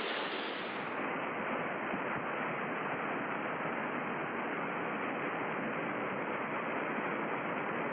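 Steady rush of a high waterfall: the twenty-metre Los Alerces falls on the Manso River, an even noise that does not change.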